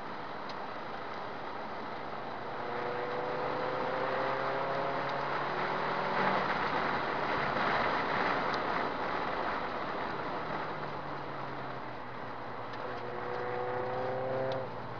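Subaru Impreza S204's turbocharged flat-four engine accelerating hard, heard from inside the car over heavy wind and road noise. Its pitch climbs steadily twice, and the second climb cuts off sharply near the end.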